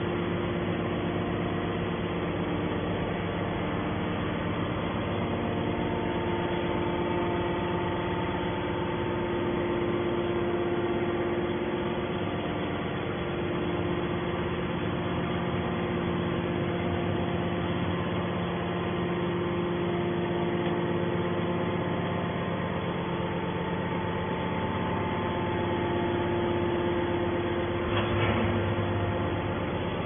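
Hydraulic scrap metal baler running: the steady hum of its hydraulic pump and motor, with a brief clunk near the end.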